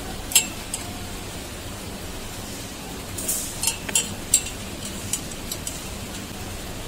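Steel hex key clinking against a screw head and metal bracket as it is fitted and turned. There is a sharp click about half a second in, a cluster of clinks from about three to four and a half seconds in, and a few lighter ticks after, over a steady low hum.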